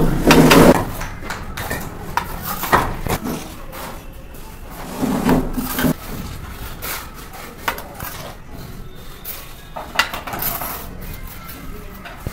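Steel mason's trowel scraping cement mortar and tapping against clay bricks as bricks are laid and bedded, giving irregular scrapes, clinks and knocks. A brief low-pitched hum comes near the start and again about five seconds in.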